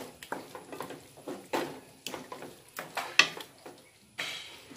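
Wooden spatula stirring and scraping chicken in thick masala around a kadai, in irregular strokes, the sharpest a little past three seconds in.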